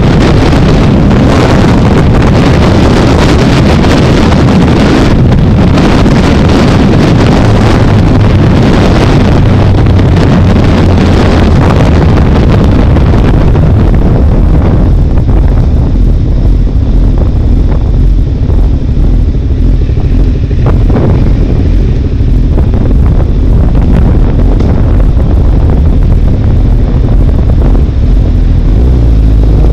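Heavy wind noise on the microphone of a motorcycle-mounted camera at road speed, over the motorcycle's engine running. About halfway through, the wind noise falls away as the bike slows in queuing traffic, leaving mostly the low engine sound.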